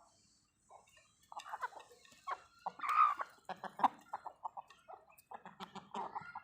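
Chickens clucking in quick runs of short notes, with one louder, drawn-out call about three seconds in.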